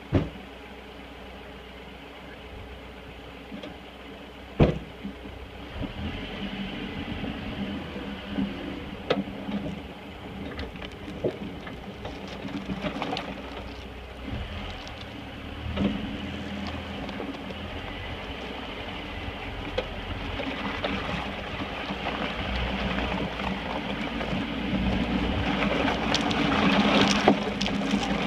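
A 1985 Toyota pickup's 22R four-cylinder engine running as the truck drives a rough trail, heard from inside the cab: a steady drone broken by scattered sharp knocks, growing louder toward the end.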